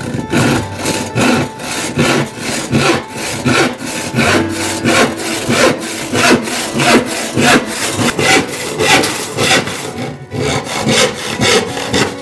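Antique Empire foot-powered scroll saw cutting wood: the treadle-driven blade saws up and down in a steady rhythm of about two to three strokes a second.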